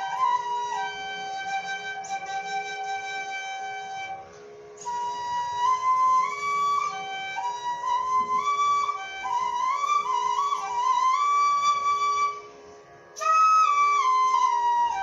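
A flute playing a melody in raag Hansadhwani, stepping and sliding between notes, with two short breaks about four seconds in and near the end.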